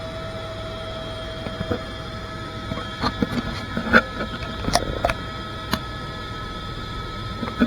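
Helicopter cabin noise: a steady drone with a few steady tones, with a scatter of sharp clicks and knocks through the middle.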